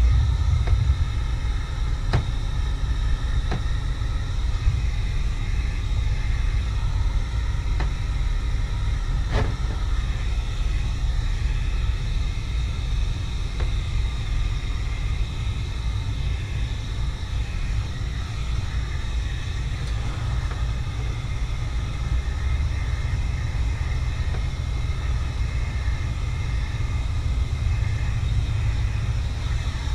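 A steady low rumble, with a few faint clicks in the first ten seconds.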